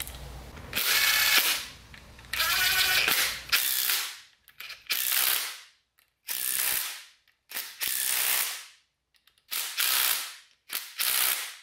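Ratchet clicking in repeated bursts about a second long, running down the oil pump mounting bolts on an LS V8 engine block.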